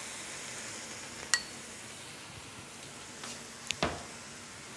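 Chicken breasts sizzling softly in melted garlic butter in a non-stick frying pan. There is a sharp, briefly ringing clink about a second in and two short knocks near the end.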